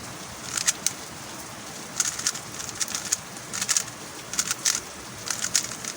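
MoYu Huameng YS3M MagLev 3x3 speedcube being turned in quick bursts: rapid plastic clicking and clacking of the layers snapping round, in short clusters about every second.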